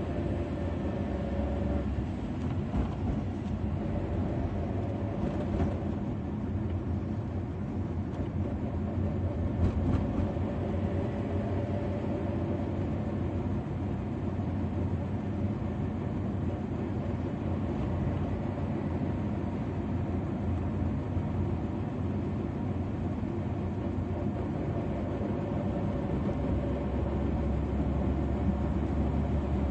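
Steady engine and road rumble of a moving car, heard from inside the cabin. The low rumble grows a little stronger near the end.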